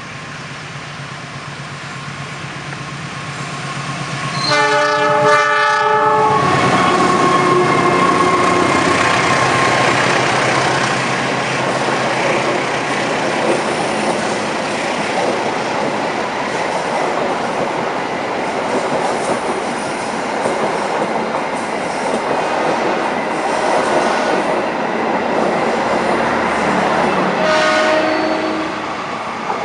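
Argo Muria passenger train approaching and passing at speed: its locomotive horn sounds loudly about four to five seconds in as the train arrives, then the rush and clatter of wheels and carriages fill the rest, with a shorter horn sound near the end.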